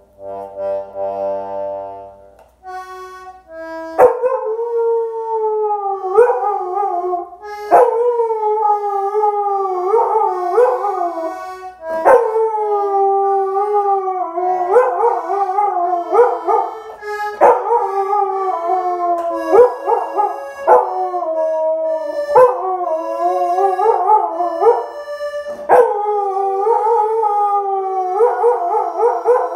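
Husky howling along with a button accordion: a few seconds of held accordion chords, then from about four seconds in long, wavering howls that rise and fall one after another over the accordion. Sharp clicks come every few seconds.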